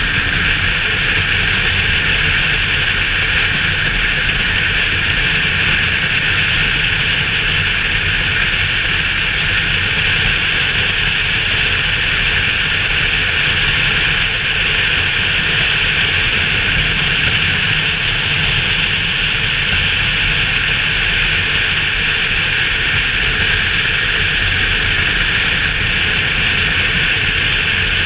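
BMW R1200GS boxer-twin motorcycle cruising at a steady speed: constant wind rush over the camera microphone with the engine running steadily underneath, with no gear changes or revving.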